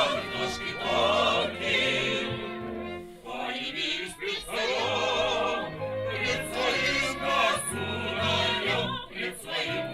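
Music with a choir singing in an operatic style over sustained low notes.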